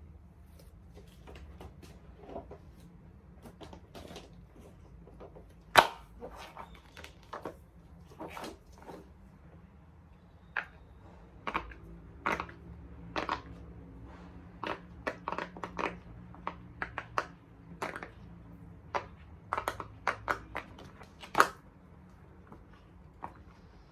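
Bubbles of a large silicone pop-it fidget toy being pressed, popping as irregular clicks. There are dozens of soft pops and two much louder ones, about six seconds in and near the end.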